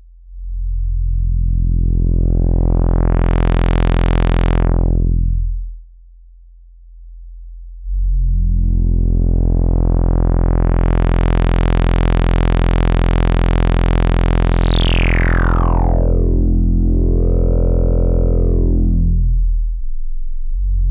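Low, buzzy synthesizer tone run through the CubuSynth Dual CS-20 VCF, an MS-20-style filter, with the cutoff swept open and shut so the sound brightens and then dulls, twice. In the second sweep the filter's high resonance whistles down in pitch as the cutoff closes, then wobbles up and down before shutting.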